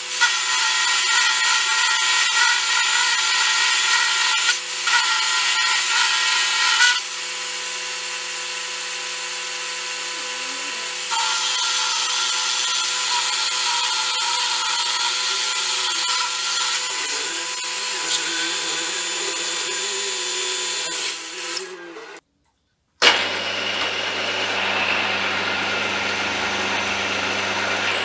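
Benchtop milling machine running, its end mill cutting a steel chuck jaw (hardened, since annealed), with a steady motor whine under the harsh cutting noise. The noise stops briefly about three quarters of the way through and resumes with a lower hum.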